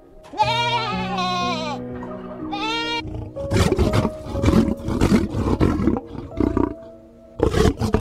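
Two goat bleats, the first long and wavering, the second short, then a lion roaring in a run of short, repeated rough pulses, all over steady background music.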